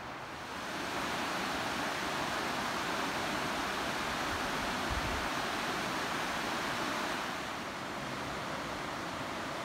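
Steady rush of river water running over rapids, growing louder about a second in and easing off a little past the middle.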